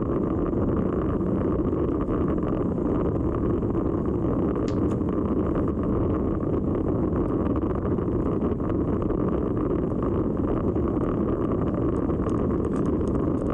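Steady wind rush buffeting the microphone of a camera on a road bicycle being ridden in a race pack into a headwind. A few faint high ticks come near the end.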